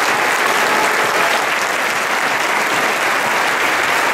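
Large audience applauding, many hands clapping in a dense, steady wash.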